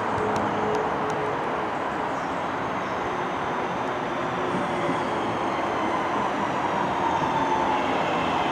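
Northern Class 323 electric multiple unit running into the station and slowing: steady rumble of wheels on the rails, with the motors' whine falling in pitch over the last few seconds as it brakes.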